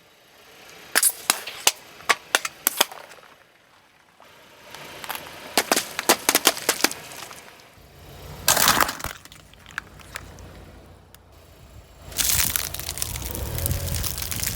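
Car tyres rolling over and crushing crunchy objects: clusters of sharp cracks and snaps in the first seconds and again a few seconds later, a louder crunch about halfway through, then a longer crunching over a low vehicle rumble near the end.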